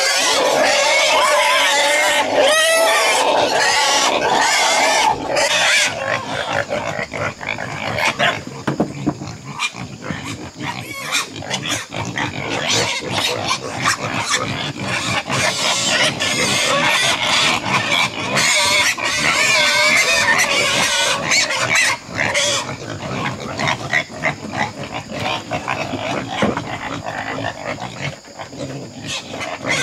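Pigs squealing, many calls overlapping in a continuous din that is loudest for the first five seconds or so and then comes and goes.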